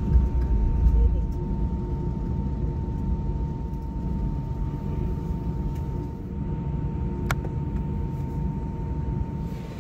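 Steady low rumble of a vehicle's running machinery with a constant whine above it, and a single sharp click about seven seconds in.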